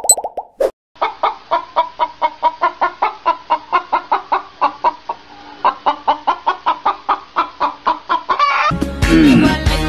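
Hens clucking in a long, even run of about four to five clucks a second. A short sound effect plays at the very start, and music with a deep beat comes in near the end.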